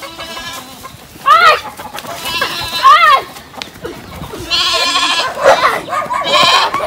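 Goats bleating on a farm: about five separate wavering calls, each rising then falling in pitch, coming every second or two.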